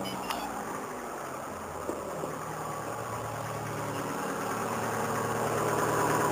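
Mitsubishi Lancer Cedia GDI engine idling just after start-up, with its alternator belt freshly cleaned and retensioned. It gets slightly louder as it goes on, and no belt squeal is heard.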